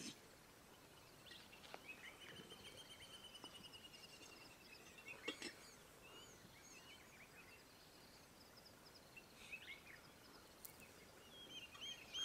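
Faint wild birds calling at dusk: scattered high chirps and a long trilling series, with a brief knock about five seconds in.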